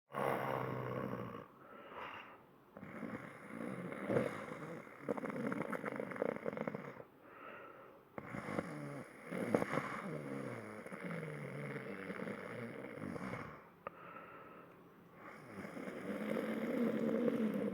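A person fake-snoring: long, drawn-out snores with short pauses between them.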